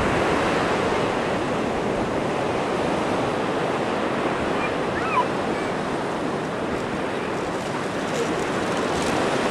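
Steady rushing of wind and surf on an open sandy beach.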